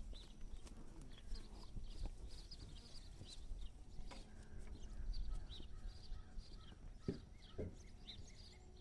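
Cattle moving about, with a few short low sounds near the end, while small birds chirp repeatedly throughout.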